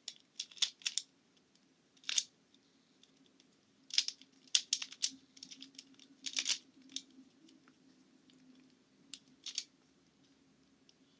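Plastic Rubik's-style puzzle cube being turned quickly by hand while being solved, giving irregular clicks and clacks in quick clusters. A faint steady hum runs underneath.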